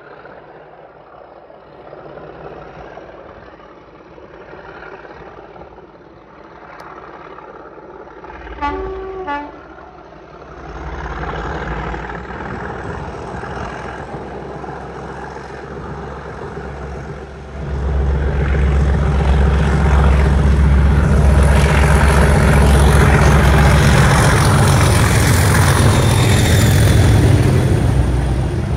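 A pair of Class 37 diesel locomotives with English Electric V12 engines working hard as they pull away, growing steadily louder as they approach. A short two-note horn sounds about nine seconds in. From about eighteen seconds the heavy engine noise becomes much louder as the locomotives pass close by.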